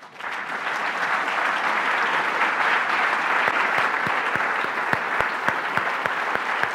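A large audience applauding loudly and steadily, with low thumps about three a second joining in from about halfway.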